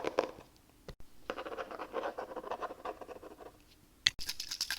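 Close-miked ASMR haircut roleplay sounds: runs of rapid, scratchy ticking strokes, with a sharper click about four seconds in.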